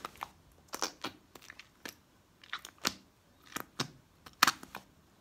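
Slime squishing as fingers press it into a small plastic keychain capsule, giving irregular little clicks and pops, the sharpest about four and a half seconds in.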